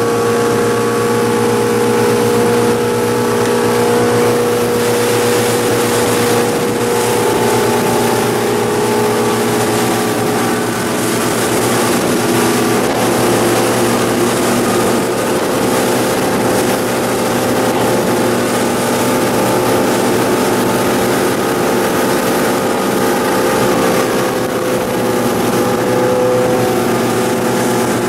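Fishing boat under way: its engine runs with a steady drone, and water rushes along the hull.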